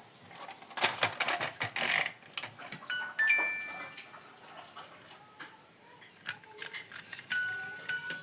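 Toy vehicle models being handled: irregular plastic clicks and knocks, busiest about one to two seconds in, with short steady electronic tones about three seconds in and again near the end.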